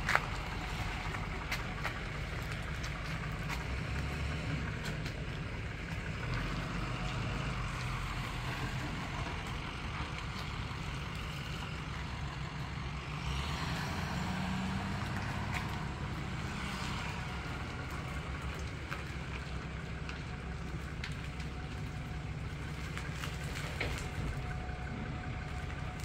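Pickup truck's engine running at low speed with a steady low rumble as it slowly backs a livestock trailer into a building.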